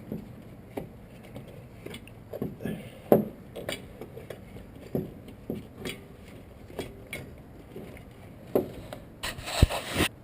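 Irregular knocks, clicks and scraping of a new alternator and its mounting hardware being handled and worked into place. There is a denser burst of scraping near the end.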